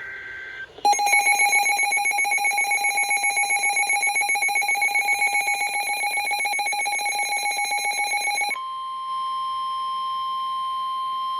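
Tail of an Emergency Alert System digital header burst, then the EAS two-tone attention signal sounding for about eight seconds with a rapid fluttering buzz, which switches about eight and a half seconds in to a single steady alert tone. It marks the start of a new broadcast emergency alert.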